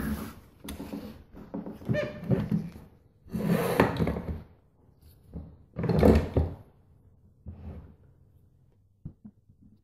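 Aluminium Honda C90 engine casings being handled and set down on a workbench: a series of irregular thuds and knocks with rubbing and scraping, the loudest about four and six seconds in, ending in a few small clicks.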